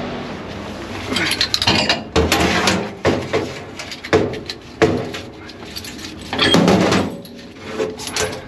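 Stainless steel camlock hose couplings and dust caps being handled and fitted, a string of metal clanks and clicks with a louder clatter about six and a half seconds in.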